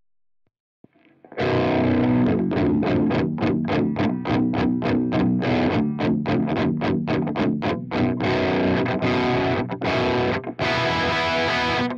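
Distorted electric guitar riff, a DI-recorded track played back through The Howler boost plugin into a Neural DSP amp simulator. It starts about a second and a half in with fast, even picking at about four notes a second, then moves to irregular chugs and held chords with short breaks near the end.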